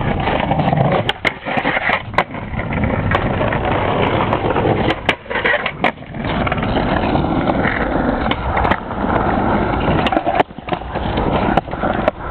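Skateboard wheels rolling over paving stones, with several sharp clacks of the board striking the ground.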